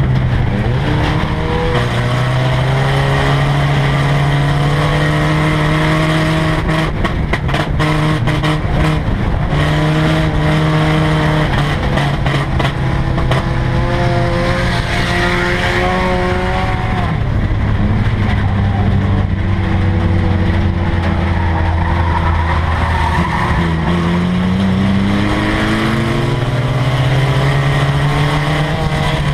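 Four-cylinder race car engine heard from inside the cockpit while racing around the oval: the pitch holds steady for a few seconds at a time, sags as the driver lifts for the turns and climbs again as he gets back on the throttle. A burst of sharp knocks and rattles comes about seven seconds in.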